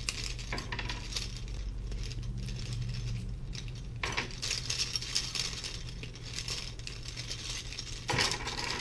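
Large chain rings clinking and jingling against each other as a chain of interlinked rings is handled and taken apart, in many small irregular clicks.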